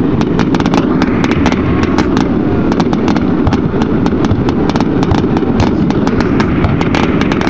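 Fireworks going off: a rapid run of sharp bangs and crackles, several a second, over a steady loud low rumble.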